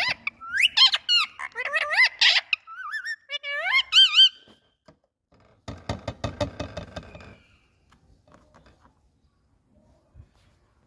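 An Indian parrot vocalizing: a run of high, squeaky whistled calls that slide up and down in pitch, as in its talking mimicry, then a short harsh raspy chatter about six seconds in, after which it falls quiet.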